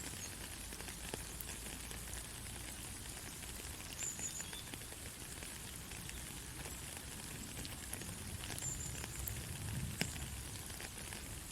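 Soft rain falling steadily, with the ticks of single drops through the hiss. Two brief high chirps come through, about four seconds in and again near nine seconds.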